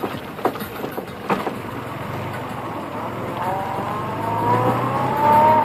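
Car driving along a rough dirt track, with sharp knocks and rattles from bumps in the first second and a half. From about three seconds in, a whine rises slowly in pitch and grows louder, then cuts off suddenly at the end.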